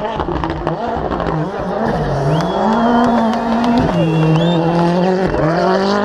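Rally car's turbocharged four-cylinder engine revving hard through the gears, its pitch climbing and dropping sharply at shifts about four and five seconds in, with a rattle of sharp pops near the start.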